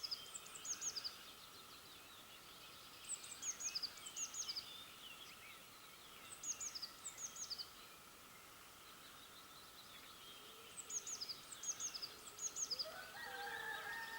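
Small songbird singing a repeated short phrase of quick, high, falling notes, four times over. Near the end a louder, lower, drawn-out call that rises in pitch begins.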